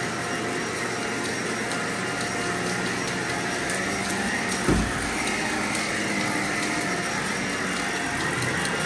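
Vacuum cleaner running steadily over a rug, with faint scattered ticks and one low thump about halfway through.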